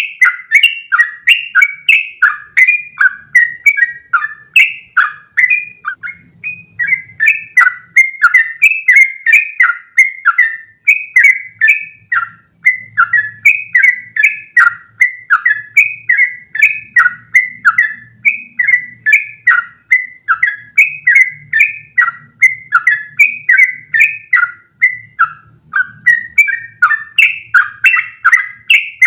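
Yellow-vented bulbul (trucukan) singing a long unbroken run of quick chattering notes, about three a second, without a pause.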